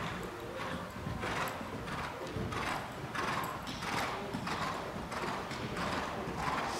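Horse's hooves on the sand footing of an indoor riding arena at the canter: soft, muffled hoofbeats in a steady rhythm of about two strides a second.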